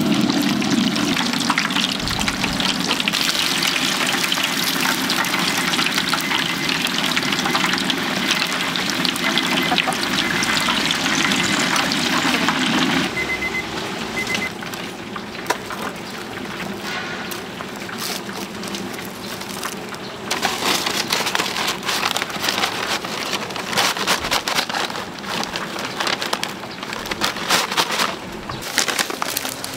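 Chicken deep-frying in a large cauldron of hot oil: a dense, steady sizzle that thins to sparser crackling in the second half.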